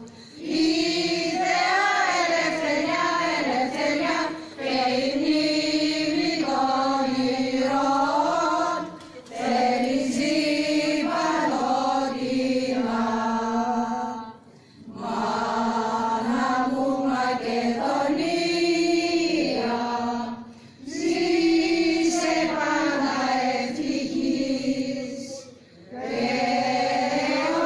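A choir chanting in long sustained phrases, each a few seconds long, broken by short pauses for breath.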